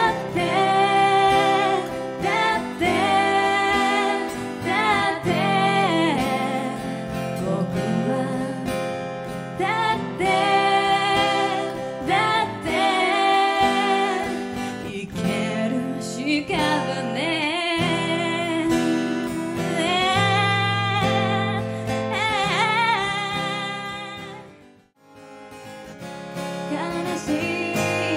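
Live acoustic song: a woman sings over a strummed acoustic guitar. The music drops out briefly about three seconds before the end, then comes back.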